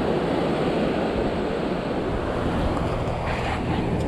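Ocean surf washing onto the beach, with wind buffeting the microphone. A steady low hum joins in about halfway through.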